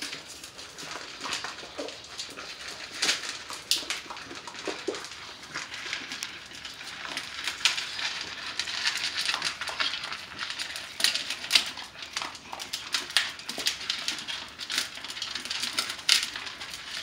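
Several bully-breed puppies crunching and chewing hard, unsoftened dry kibble from a shared pan, a steady scatter of irregular crisp crunches and clicks.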